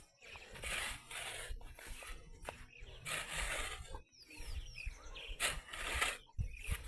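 Bursts of outdoor scraping and rustling noise, uneven and about a second apart, with a bird chirping briefly a couple of times.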